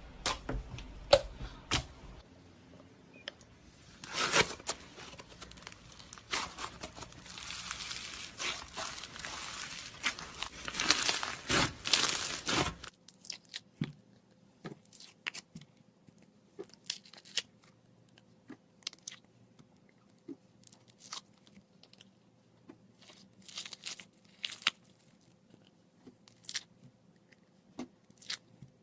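Slime being squeezed and poked by hand, giving dense crackling and popping for roughly the first half, then scattered single pops and clicks.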